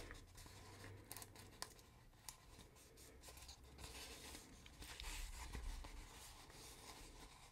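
Faint rustling of a printed paper sheet being handled and turned over, with a few light clicks.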